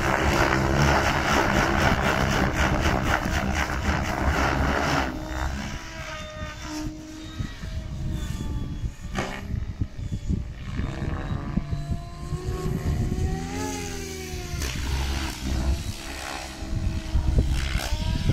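ALZRC N-Fury T7 electric RC helicopter in 3D flight: rotor chop and motor whine, loud for the first five seconds, then fainter as it flies farther off. The whine rises and falls in pitch as it manoeuvres.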